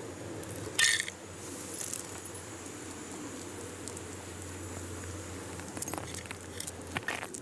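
A thin sheet of ice dropped onto concrete, landing with one sharp clattering crack about a second in. A few lighter clinks follow near the end.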